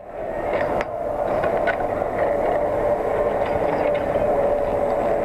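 A steady mechanical hum with a constant mid-pitched tone over a rushing noise, broken by a few short clicks and knocks.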